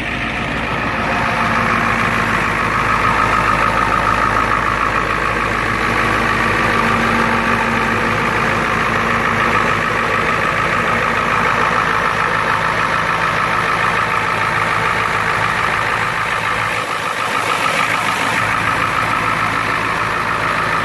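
1988 Ford F-250's 7.3-litre International V8 diesel idling steadily, heard up close under the open hood.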